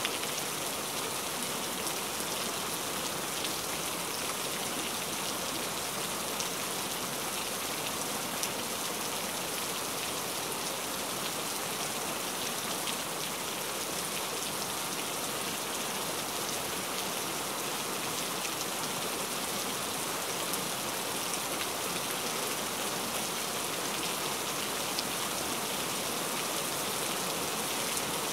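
Steady rain, an even hiss with faint ticks of single drops, unchanging throughout.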